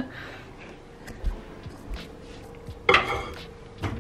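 Light knocks and a short clatter of dishes being handled, about three seconds in, then the click of a microwave door being opened near the end.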